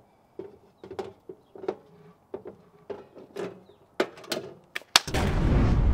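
A run of short, sharp clicks and knocks, followed about five seconds in by a sharp crack and then a loud, deep rush of noise that holds.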